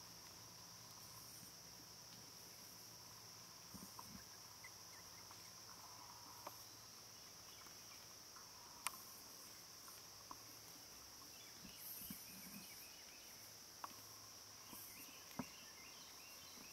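Steady high-pitched drone of a summer insect chorus in woodland, with a few sharp faint clicks and ticks scattered through, one louder click near the middle.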